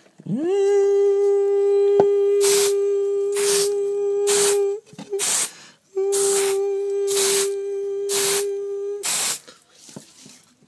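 Short hissing squirts of a hand spray bottle, about one a second, over a steady high hum. The hum slides up in pitch as it starts, breaks off for about a second midway, and stops near the end.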